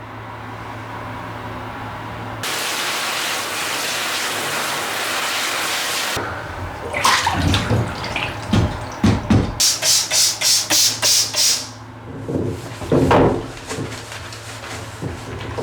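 Water running from a tap for about four seconds, then cuts off; afterwards handling knocks and a quick run of about eight scrubbing strokes.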